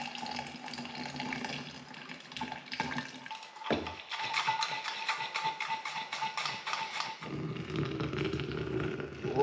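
Running water splashing, with irregular clicks through it; about seven seconds in it changes to a steadier, lower rush.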